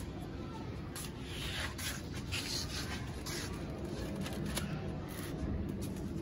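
Light rustling and crinkling of a paper kite and tape being handled as small pieces of tape are stuck onto the kite, in several short scattered scrapes over a steady low background rumble.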